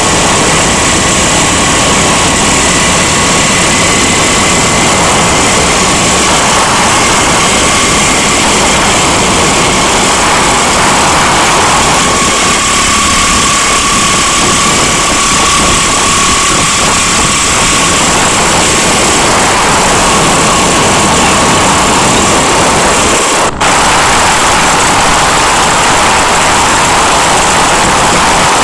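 Steady engine and road noise of a moving vehicle, heard from aboard, with a steady whine running through it. It breaks off for a moment about 23 seconds in, at a cut.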